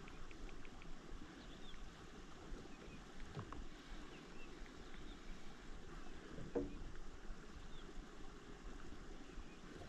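Faint ambience on a kayak on the water: low, steady wind and water noise, with two soft knocks, one about a third of the way in and one about two-thirds in.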